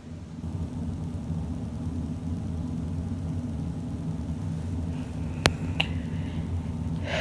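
A steady low background hum, with a sharp click and a fainter one about five and a half seconds in.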